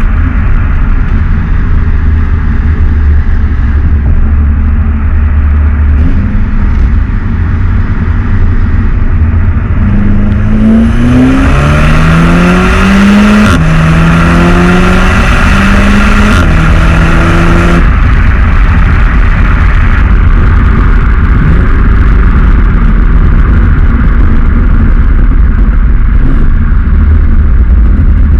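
Volkswagen Golf 7 R's turbocharged 2.0-litre four-cylinder on its stock exhaust, running with a low rumble. About ten seconds in it accelerates hard: the pitch climbs, drops back at each DSG upshift and climbs again, three or four times. It then settles back to a steady drone.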